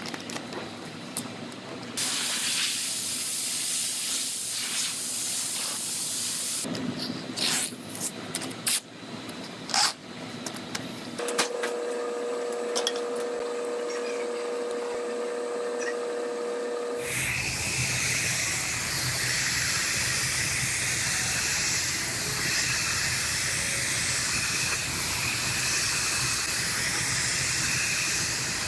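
Compressed-air hissing from air tools in a body shop: a steady hiss, a few knocks and clicks about a third of the way in, a steady pitched air-tool hum in the middle, then a loud continuous hiss through the second half.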